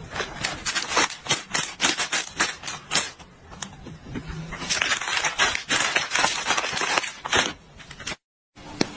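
A plastic snack bag being crinkled and handled, giving a dense, irregular crackling that cuts out briefly near the end.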